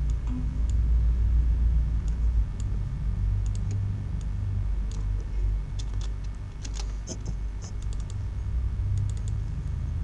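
Irregular clicking of computer keys and mouse buttons in small clusters, over a steady low hum from the recording.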